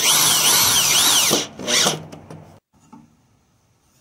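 Power drill driving a screw into a wooden frame, its motor pitch rising and falling several times before it stops about a second and a half in, followed by one short final burst.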